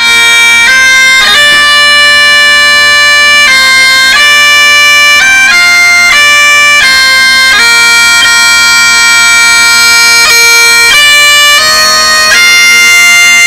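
Loud bagpipe music: a melody of held notes stepping up and down over a steady drone.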